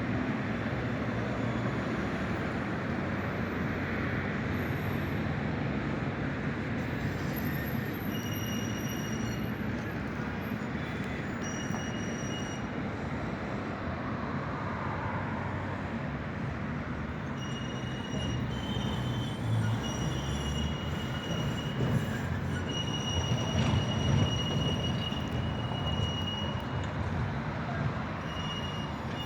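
Tram rolling slowly through a tight turning loop, running noise throughout, with high-pitched wheel squeal on the curve that comes and goes from about eight seconds in and is longest and loudest in the second half.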